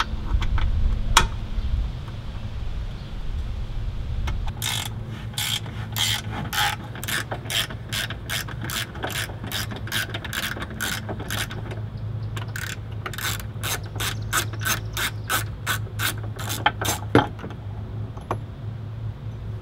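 Ratchet wrench clicking in a steady run of about two clicks a second, with a short pause about halfway, as a T50 Torx bumper bolt is backed out.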